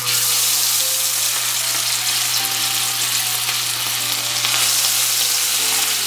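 Marinated chicken pieces deep-frying in hot oil in a nonstick pan: a loud, steady sizzling hiss that starts suddenly as the first piece goes into the oil.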